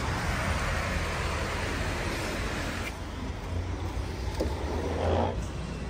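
Road traffic passing on wet pavement: a steady hiss over a low rumble that drops off about three seconds in.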